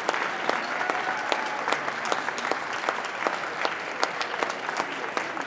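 Audience applauding: a dense spread of hand claps, with some single sharp claps standing out.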